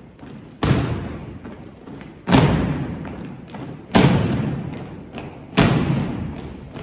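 Drill team stomping in unison on a wooden gym floor: four loud, sharp stomps about a second and a half apart, each ringing out in the hall's echo, over quieter marching footsteps.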